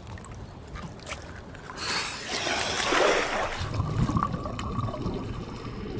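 Water splashing and rushing as a scuba diver ducks under the surface, followed by muffled underwater bubbling.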